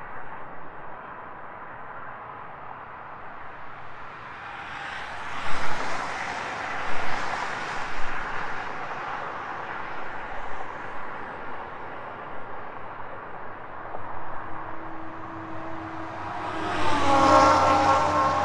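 Highway traffic passing. A vehicle's tyre noise swells and fades about a quarter of the way in. Near the end a heavy truck passes close, and its engine and tyres are the loudest sound.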